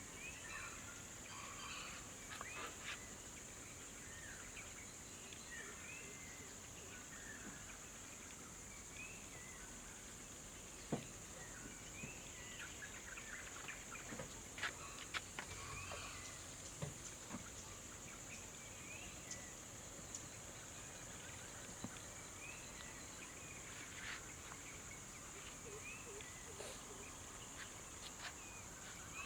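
Outdoor wild ambience: a steady high-pitched drone with birds calling in scattered short chirps and a few faint clicks.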